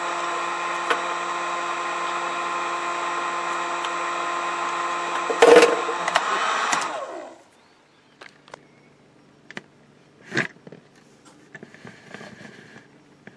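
A small handheld electric power tool's motor runs with a steady whine, with one sharp clack about five and a half seconds in. It is switched off about seven seconds in and winds down. A few light taps and scrapes follow.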